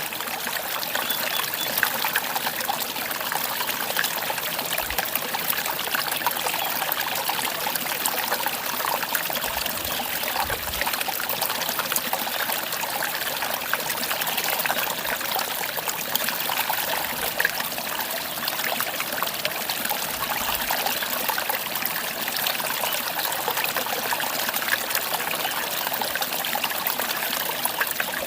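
Mountain valley stream flowing, a steady, unbroken rush of trickling water.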